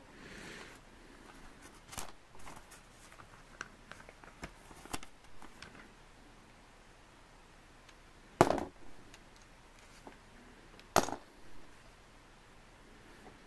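Plastic LEGO bricks clicking as they are handled and pressed together or pulled apart: a scatter of small clicks, with two louder sharp snaps in the second half.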